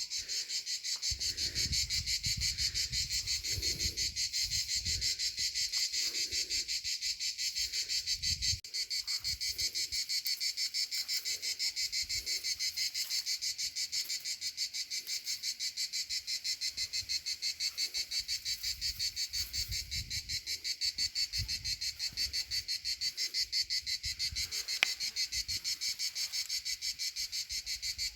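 Steady insect chorus with a rapid, even pulsing chirp that carries on throughout. Low rustling and handling noise can be heard in the first several seconds.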